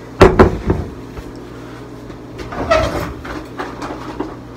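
Glass baking dish set down on a granite countertop: a few sharp knocks shortly after the start. Then, near the middle, a kitchen drawer is slid open and rummaged.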